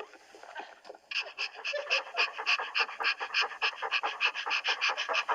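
A dog panting rapidly and rhythmically, about five breaths a second, starting about a second in.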